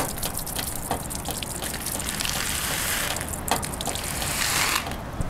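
Rain stick tipped over, its filling trickling down the tube as a dense, steady stream of tiny clicks and hiss that eases off briefly near the end.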